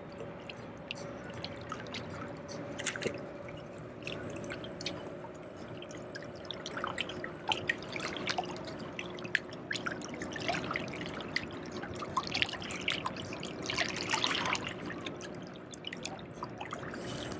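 Small waves lapping and dripping against shoreline rocks, with irregular little splashes that come in louder clusters twice in the second half. Underneath is the faint, steady hum of a passing motorboat's engine.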